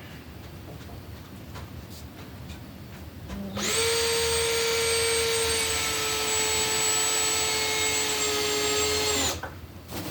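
Power drill running steadily for about five and a half seconds, starting about three and a half seconds in and stopping sharply, its whine dropping slightly in pitch partway through.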